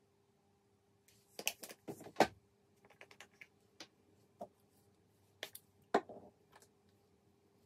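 Clicks and light knocks of small plastic makeup containers being handled and put down on a table: a flurry of clicks about a second and a half in, lighter ticks after, and two sharp clicks around six seconds, over a faint steady hum.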